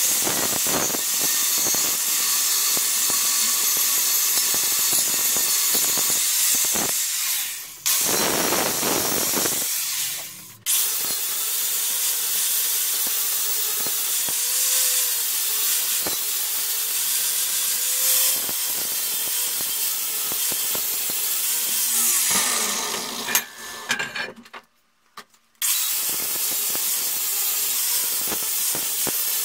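Angle grinder with an abrasive flap disc grinding a steel rail anvil. The motor whines under load beneath a harsh, hissing grind. It breaks off briefly a couple of times and drops almost to silence for about a second late on before grinding again.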